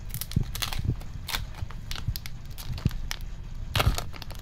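Stiff plastic wrapper of a trading card booster pack crinkling and crackling in irregular sharp bursts as it is handled and torn open, loudest near the end.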